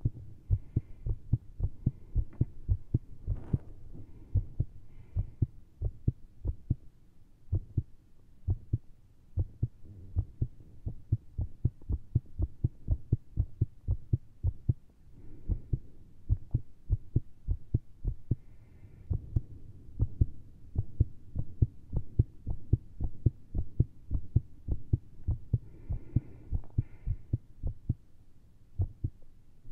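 Human heartbeat heard through a stethoscope, fast and very irregular, with uneven spacing and strength from beat to beat: a caffeine- and strain-driven racing rhythm with skipped beats.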